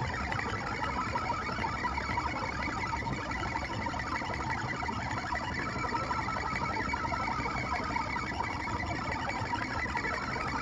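Shaper Origin handheld CNC router's spindle running steadily, its spiral end mill cutting in a trochoidal milling pass, with a steady whine.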